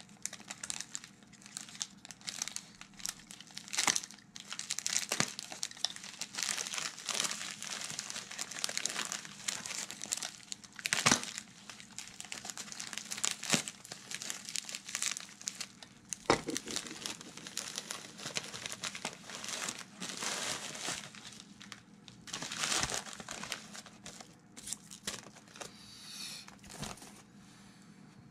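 Plastic poly mailer bag crinkling and tearing as it is cut and pulled open, with a few sharp snaps, dying down near the end.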